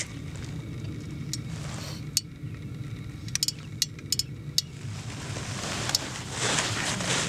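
A steady low rumble with several sharp, light clicks and clinks in the middle, and a rustling swell near the end.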